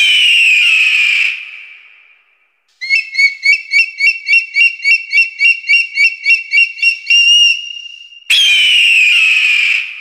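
Bird-of-prey calls: a long scream falling in pitch, then a rapid string of high, chittering chirps at about four a second that ends in a short held note, and another long falling scream near the end.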